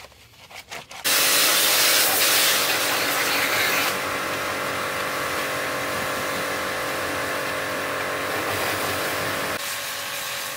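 A motor-driven machine starts suddenly about a second in and runs steadily with a loud hiss and a steady hum; it drops somewhat in level about four seconds in.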